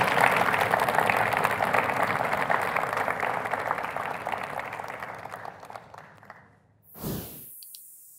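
Audience applauding, the clapping fading steadily away over about six seconds. Near the end a brief swell of noise opens the closing sound effect.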